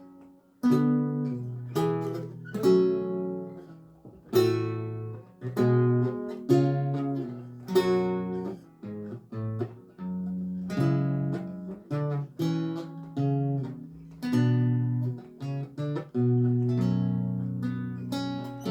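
Solo lute music: plucked chords and single melody notes, each starting sharply and ringing away, in an unhurried rhythm.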